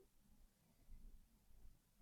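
Near silence in the pause between a sleeping person's snores, with only a faint low rumble.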